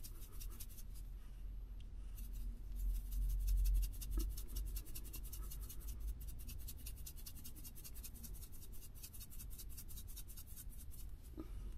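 Spice jar being shaken over a slow cooker pot to sprinkle in seasoning, a fast run of light, dry ticks. A low rumble of handling sounds about three seconds in.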